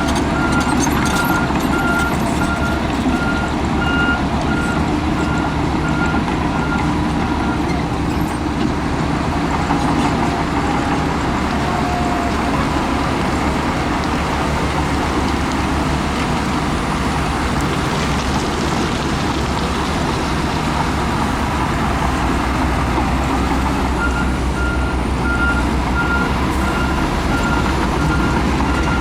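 Heavy diesel earthmoving machines running steadily under load, with a backup alarm beeping at a steady pace for the first several seconds and starting again near the end.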